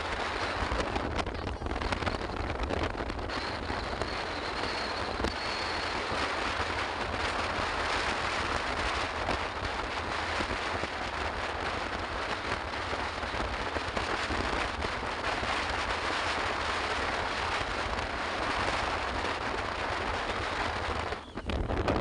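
Wind buffeting and crackling on a phone microphone on a moving motorcycle or scooter, a steady rushing noise with road and riding noise underneath.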